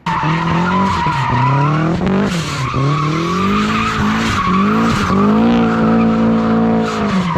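Turbocharged 1.6-litre Mazda Miata engine accelerating hard. The engine note climbs in pitch and drops back several times as gears change, with a steady hiss over it.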